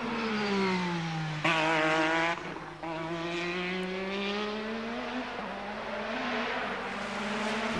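Williams-Honda Formula 1 car's turbocharged V6 engine heard trackside, its note falling as the car slows for a corner and then climbing again as it accelerates out.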